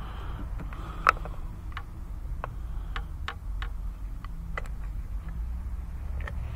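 Light, irregular clicks and ticks, about a dozen, the sharpest about a second in, as plastic ignition-coil and boot parts are handled in the engine bay, over a steady low hum.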